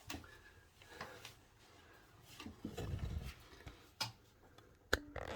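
Samsung WF1702NHW front-loading washing machine starting a spin-cycle test after its motor was refitted: a few faint clicks, with a low rumble around the middle as the machine begins to work.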